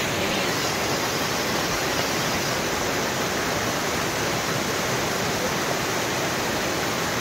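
Floodwater of a swollen stream rushing past, a steady, unbroken roar of water.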